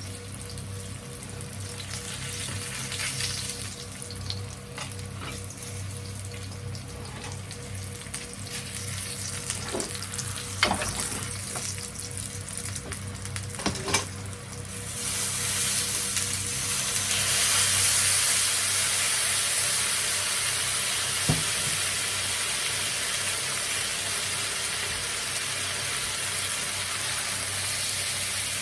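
Food frying and sizzling in a pan, with a few sharp knocks from utensils. The sizzle swells to a much louder, steady hiss about halfway through.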